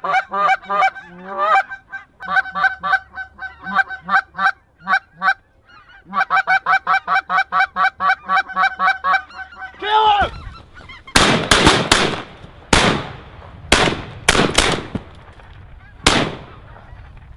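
Rapid, evenly repeated goose honking for about nine seconds. Then a volley of about seven shotgun blasts fired over roughly five seconds.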